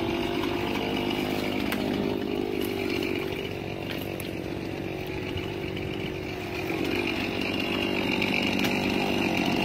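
Stihl chainsaw running steadily, dropping a little in the middle and then picking up again.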